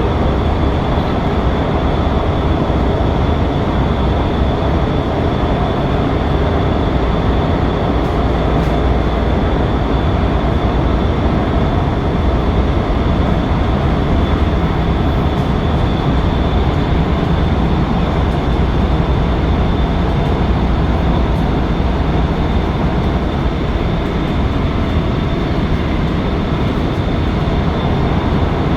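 Fuzhou Metro Line 6 Type B train running at speed between stations, heard from inside the car: a steady rumble of wheels on rail with a constant high whine above it.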